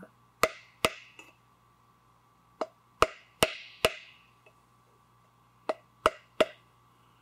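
Wooden mallet handle tapping a piston along the bore of a finned, air-cooled engine cylinder: sharp knocks in three groups of two to four. Each knock nudges the piston so its wrist pin stays reachable.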